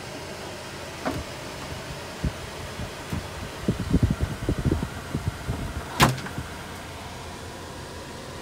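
Knocks, bumps and clicks of someone moving about and handling things inside a truck cab, with one sharp click about six seconds in, over a steady hum.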